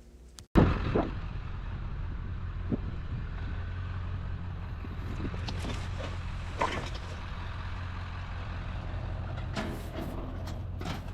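Truck running on the road, a steady low drone with a few short knocks and rattles.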